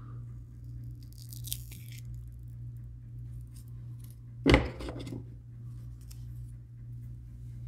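A silicone mould being peeled apart, with a brief tearing rustle about a second in as the halves separate. About halfway through comes a single loud thump, the loudest sound, with faint handling clicks and a steady low hum underneath.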